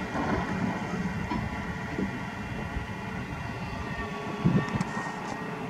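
Komatsu PC350 hydraulic excavator's diesel engine running under load with a steady high tone over a low rumble as the machine swings its bucket over armour stones. A sharp knock comes about four and a half seconds in, followed by a few faint clicks, as the bucket meets the rocks.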